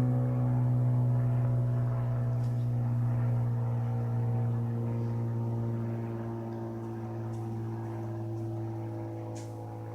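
Engine and propeller drone of a low-flying light airplane, taken for a Cessna: a steady, even-pitched buzz that slowly fades as the plane moves away.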